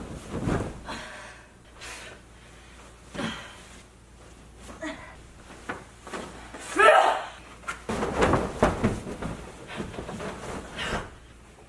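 A heavy blanket flapping and rustling as it is flung over and dragged across a mattress, with dull thumps on the bed, the strongest about half a second in. About seven seconds in comes a wavering, strained vocal whine of effort, the loudest sound here.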